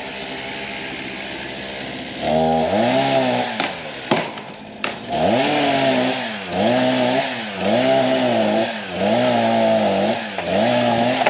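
Chainsaw engine running steadily at a low speed, then revved up about two seconds in. Its pitch drops and recovers about five times, as happens when the chain is loaded in a cut.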